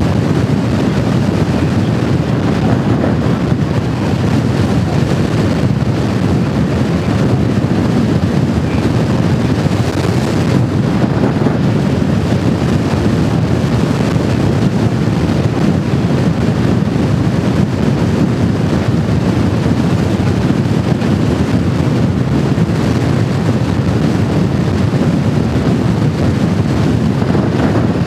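Steady wind rush over the microphone of a motorcycle at road speed, with the motorcycle's engine and tyre noise blended underneath.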